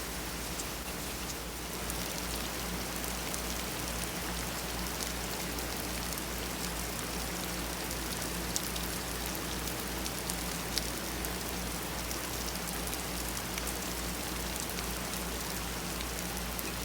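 Steady rain in a thunderstorm, with many single drops ticking sharply against a nearby surface over a steady low rumble.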